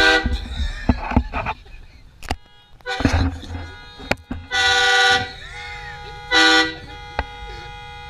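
Aftermarket train horn on a Chevy Silverado pickup, an air horn fed by a compressor and 5-gallon tank, sounding a chord of several steady tones. There is a short blip at the start, then two loud blasts about four and a half and six and a half seconds in; the first lasts about a second and the second is shorter.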